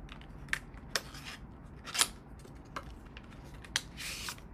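Small sharp clicks and a rustle from handling a false-eyelash pack and its plastic tray: about half a dozen clicks, the loudest about two seconds in, and a brief rustle near the end.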